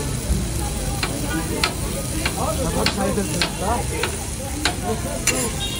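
Metal spatula chopping and scraping chicken and vegetables on a hot steel flat-top griddle, with sizzling under it. The spatula strikes the plate in sharp clacks about every half second.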